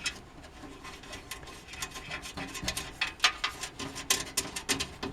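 Irregular small clicks and scratching of a motherboard standoff being screwed by hand into a mounting hole in a PC case.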